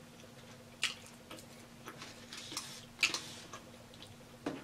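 Close-miked eating sounds from chewing a chicken wing: a few soft wet mouth clicks and smacks, the two clearest about one and three seconds in, over a faint steady hum.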